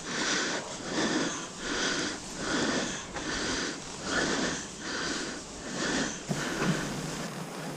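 A person breathing hard close to the microphone, a quick, even run of breaths that stops about six seconds in.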